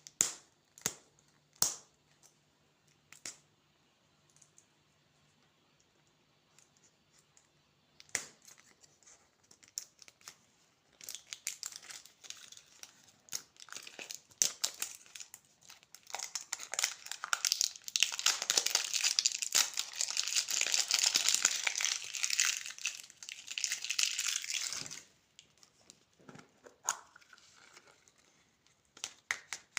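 Candy wrapper being crinkled and torn open: a few sharp clicks at first, then dense crinkling that builds from about ten seconds in, is loudest for several seconds and stops abruptly, with scattered rustles after.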